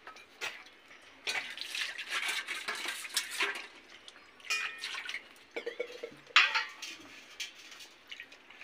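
Scattered light clinks and taps of stainless-steel plates and small bowls as food is eaten by hand. There is a busier run of clatter in the first few seconds and a sharp knock about six seconds in.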